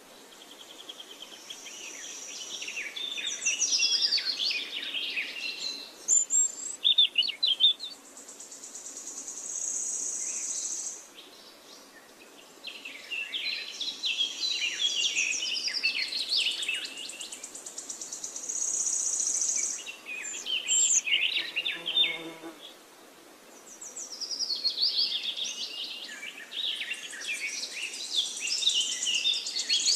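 Birds chirping and calling in repeated bouts, with a high buzzing trill that comes and goes every several seconds.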